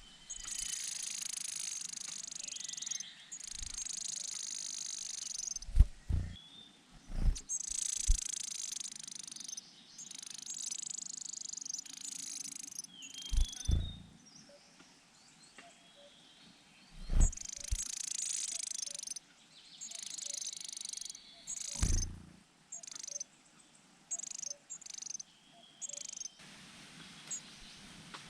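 Leaf warbler nestlings begging with high, hissing calls in runs of a second or more, broken by short pauses, with several low thumps in between.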